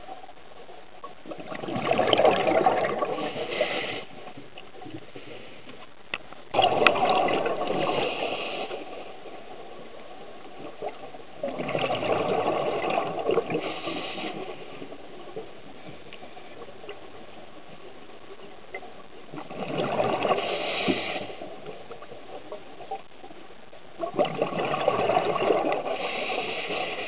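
Scuba diver's exhaled breath bubbling out of the regulator underwater: five gushing, crackling bursts of bubbles, each lasting two to three seconds and coming about every five seconds in a slow breathing rhythm, with quieter hiss in between.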